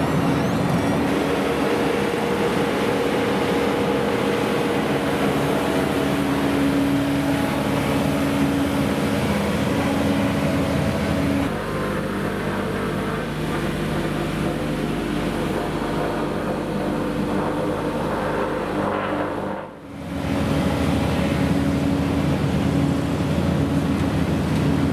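A motor vehicle's engine running steadily, its sound changing about halfway through and dropping away briefly near the end.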